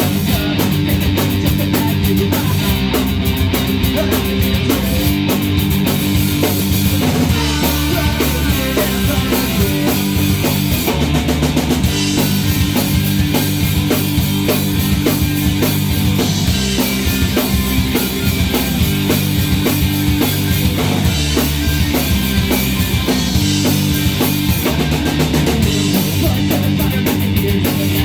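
Rock band playing loudly, guitar over a driving drum kit, with no singing heard.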